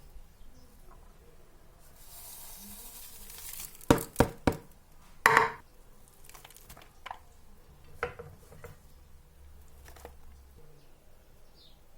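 Kitchen utensils and dishes being handled: a brief hiss, then a quick run of sharp clinks and knocks, followed by a few lighter taps.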